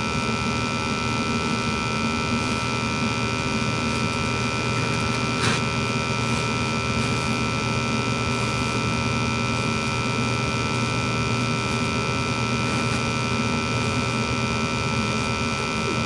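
Steady electric motor hum with a high, even whine from running HVAC equipment, with a single click about five and a half seconds in.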